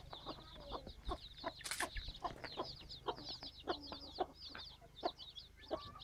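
A brood of chicks peeping constantly in short, high, falling chirps while the mother hen clucks in short, low, repeated notes.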